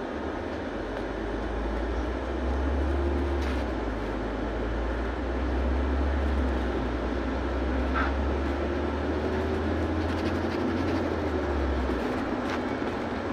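Ride noise inside a LiAZ 6213.65 articulated city bus under way: a steady low rumble with a faint whine above it that rises and falls in pitch. The rumble drops away about twelve seconds in.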